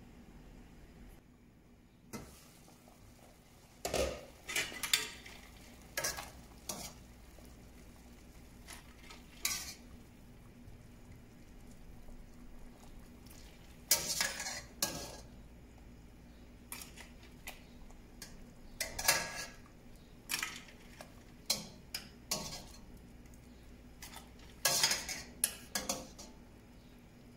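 Metal ladle clanking and scraping against a stainless steel pot while white cauliflower florets are scooped out of boiling water, in irregular clusters of sharp knocks every few seconds. A faint steady hiss of the boiling water runs underneath.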